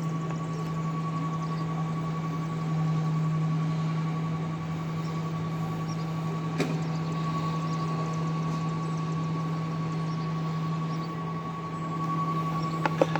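Recycling truck's engine running with a steady low hum, and a constant high-pitched tone over it. A single sharp click about halfway through and a few more clicks near the end.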